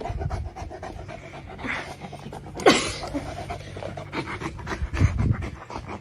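A dog panting rapidly, with one short, sharp, falling sound about halfway through.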